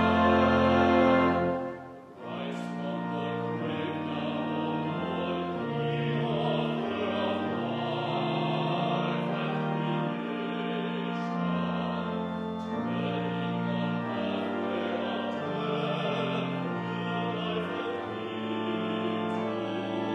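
Hymn verse sung by classically trained voices with pipe organ accompaniment. A louder full passage dies away about two seconds in, and the singing and organ then carry on more softly with steady held organ notes under the voices.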